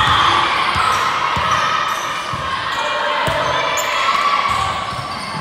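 Volleyball rally in a gymnasium: dull thuds of the ball being played, under shouts from players and spectators echoing around the hall.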